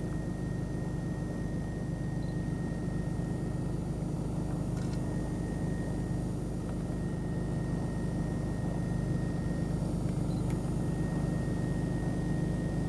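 Vehicle engine running at a steady, unchanging speed, with a faint thin high whine over it.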